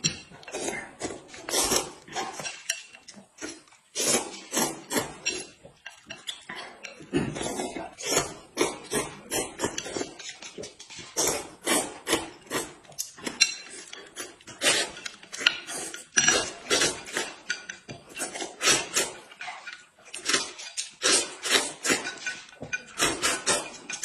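Close-up eating sounds: noodles slurped and chewed, with chopsticks and a spoon clicking and scraping against plates in quick, irregular strokes.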